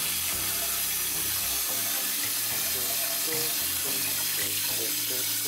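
Kitchen tap running steadily into a metal pot of rice in a stainless-steel sink while the rice is rinsed by hand.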